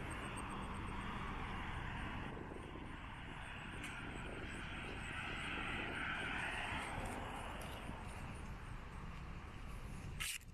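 Street traffic: cars driving past with tyre noise, one passing car swelling louder and fading about halfway through. Two sharp clicks near the end.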